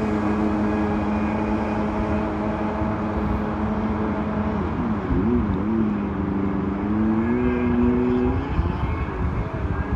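Jet ski engine running at speed out on the water, its note holding steady, then dipping and climbing about five seconds in and rising again a couple of seconds later as the throttle changes.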